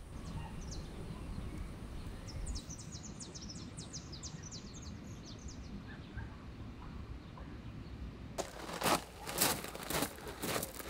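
A bird calls a quick run of a dozen or so short, high chirps that step down in pitch, over a low outdoor rumble. About eight seconds in, louder crunching footsteps on gravel take over.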